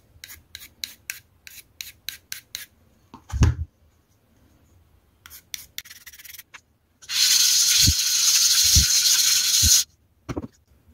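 Pencil scratching short grid lines onto a Boride T2 sharpening stone, then the stone rubbed back and forth on a wet granite lapping plate for about three seconds with a loud, gritty hiss and a few low knocks. The rubbing is a flatness check that wears the pencil grid off the stone's face.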